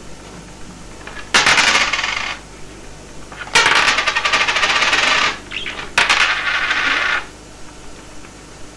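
Coins clattering and rattling on a hard tabletop as a budgerigar flicks them off a stack, three times, each rattle lasting a second or two before the coin settles.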